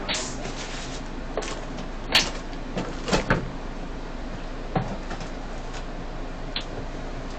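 A handful of short clicks and knocks in a bus driver's cab, the loudest about two seconds in and a quick pair a little after three seconds. A steady low hum from the stationary bus runs beneath them.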